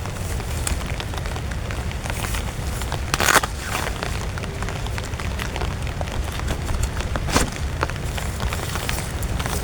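Heavy rain pattering on a tent, a dense crackle of drop impacts over a steady low rumble of wind. Two louder sudden hits stand out, one about three seconds in and one about seven seconds in.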